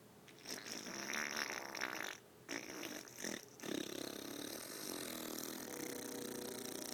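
A weird, unidentified noise of the kind posted as 'strange sky sounds'. It comes in several rough, noisy blasts, and from about halfway through one long steady blast with a faint steady tone under it.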